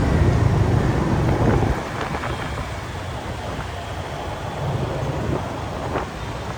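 Road traffic noise with wind buffeting the microphone: a heavy low rumble that drops off about a second and a half in, leaving a steadier, quieter road noise.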